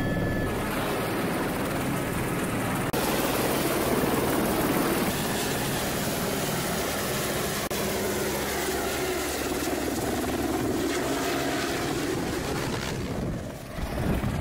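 Helicopter hovering low overhead: a loud, steady rotor beat and turbine noise. It drops away near the end.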